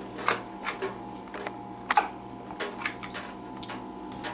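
Parts of a thermal carafe coffee maker being handled: about ten irregular light clicks and knocks, over a faint steady hum.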